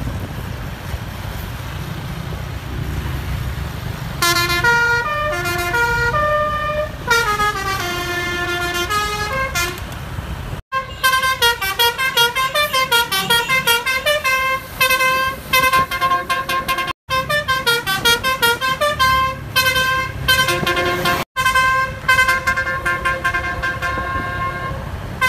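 A bus's 'basuri' telolet musical horn plays fast tunes of stepped, trumpet-like notes, starting about four seconds in over a low traffic rumble. The melody runs in quick descending and repeating phrases and breaks off abruptly three times before picking up again.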